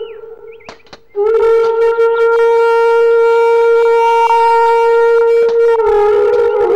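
Background film score: a reedy wind instrument comes in about a second in and holds one long steady note, then slides to a slightly lower note near the end.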